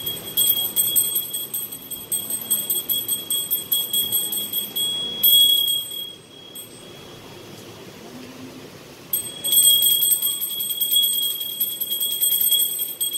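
Small hand-held puja bell rung rapidly and continuously during evening aarti. The ringing stops about six seconds in and starts again about three seconds later.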